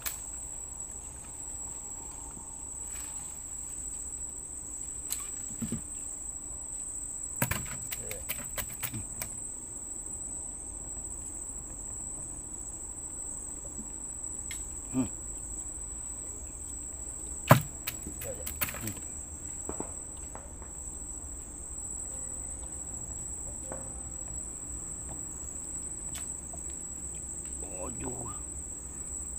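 Steady, high-pitched, single-pitch trilling of night insects, with a few sharp knocks scattered through it; the loudest knock comes a little over halfway in.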